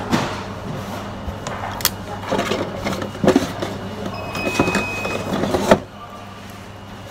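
Handling noise: rustling and clattering as tools are grabbed from a shelf, with a few sharp clicks. It stops suddenly near six seconds in, leaving a steady low hum.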